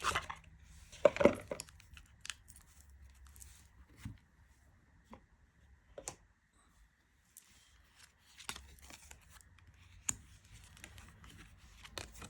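Handling of a tarot deck and its cardboard box: scattered papery rustles, slides and light taps of cards, with the loudest rustle about a second in.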